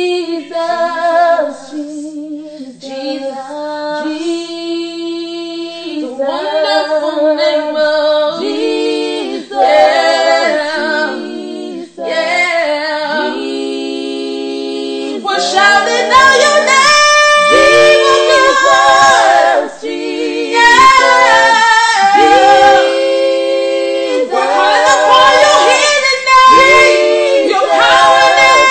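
Unaccompanied female singing with long held notes and vibrato, growing fuller and louder about halfway through.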